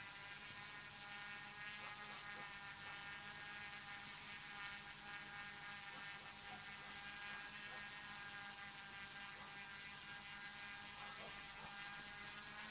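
Faint, steady hum of a DJI F450 quadcopter's brushless motors and propellers in flight, holding one pitch throughout.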